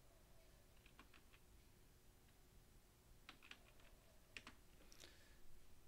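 Faint computer keyboard typing: scattered keystrokes in small clusters, a few about a second in and more from about three seconds in.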